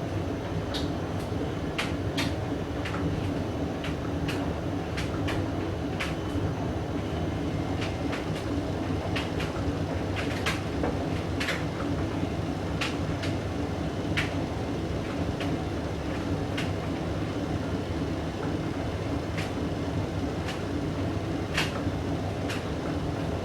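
Hoover DYN9144D3X front-loading washing machine running with a load of blankets: a steady motor hum from its Candy motor, with sharp clicks and knocks at irregular moments as the drum turns.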